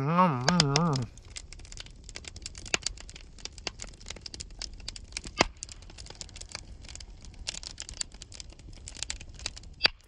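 Wood campfire of split logs crackling with irregular sharp pops over a low steady rumble, starting about a second in; one pop about five and a half seconds in stands out.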